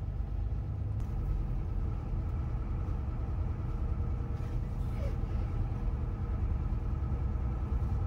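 Mercedes 4x4 expedition truck driving, its diesel engine and road noise a steady low rumble heard from inside the cab.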